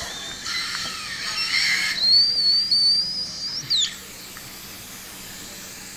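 Surgical suction in the mouth hissing, then giving a high, wavering whistle for about two seconds that breaks off just before the four-second mark.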